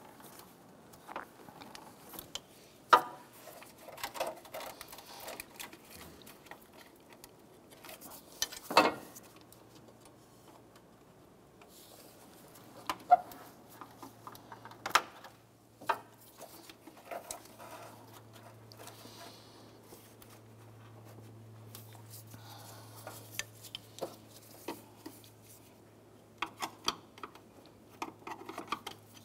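Scattered clicks, knocks and small rattles of plastic wiring-harness clips and connectors being pried and pulled off a car's electric cooling fan assembly. A low steady hum starts about nine seconds in.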